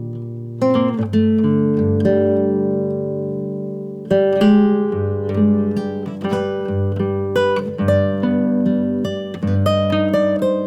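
Instrumental acoustic-guitar music, plucked notes and chords ringing out over held bass notes, played through a 3055-transistor amplifier and speaker under test.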